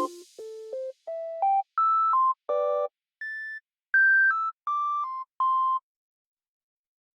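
Background music: a short electronic melody of single synthesizer notes that stops about six seconds in.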